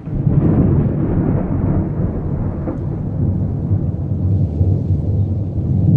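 Low, rolling rumble of thunder, loud and continuous with a fluctuating deep tone.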